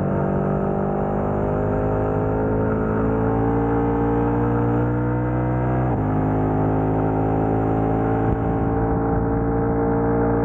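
KTM 1290 Super Adventure's V-twin engine, through a Wings aftermarket exhaust, pulling under throttle with its pitch climbing steadily. About six seconds in, an upshift drops the pitch suddenly, and then it climbs again.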